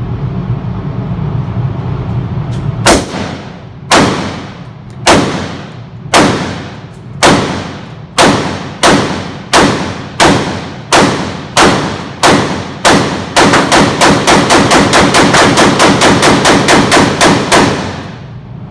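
AR-15 rifle fired in an indoor range, each shot followed by a short echoing tail. About a dozen single shots come roughly a second apart, then closer together. Near the end comes a rapid string of shots, several a second, lasting about four and a half seconds.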